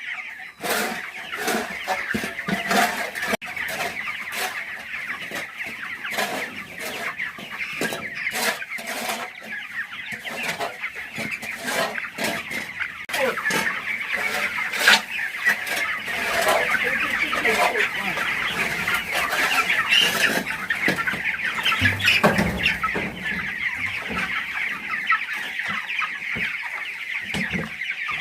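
A large flock of young chicks, under four weeks old, peeping continuously in a dense chorus, with scattered short clicks and knocks among them.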